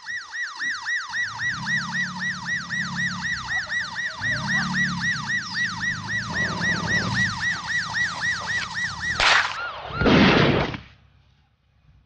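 Emergency-vehicle siren giving a rapid falling whoop, about four times a second, cutting off suddenly about nine seconds in. A loud burst of noise lasting under a second follows about a second later.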